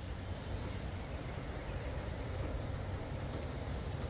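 Steady rain falling on the yard and woods, a continuous even hiss over a low rumble, with a couple of faint high chirps near the end.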